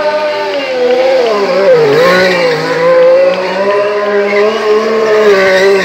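Ferrari Formula 1 car's turbocharged V6 engine revving high as the car spins donuts with its rear tyres spinning and smoking. The engine note wavers up and down, dipping sharply about two seconds in.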